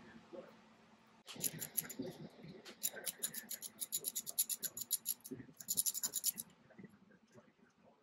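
Socket ratchet clicking rapidly as a 13 mm starter bolt is backed out, in one long run and then a shorter second run that stops a little past six seconds in.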